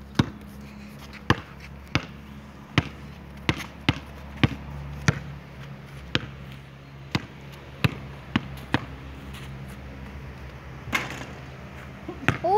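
Basketball bouncing on a concrete court: about a dozen sharp, separate bounces, half a second to a second apart, that stop about nine seconds in, then one more thud near the end.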